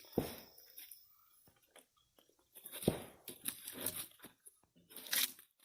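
Bark being pried and torn off a log: irregular crunching and tearing with a few sharp knocks.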